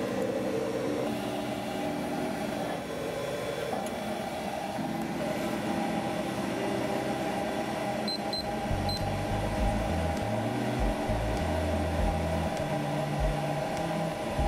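Freund Spir-A-Flow fluidized-bed granulator dryer running with a steady hum of air and machinery. About 8 seconds in, the digital timer on its panel gives a few short high beeps as its buttons are pressed.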